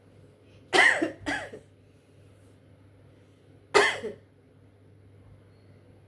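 A woman coughing: two quick coughs about a second in, then one more near four seconds.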